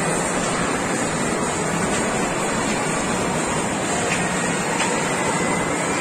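Steady, even din of a busy indoor amusement hall, with no breaks or distinct events, and a faint thin tone appearing near the end.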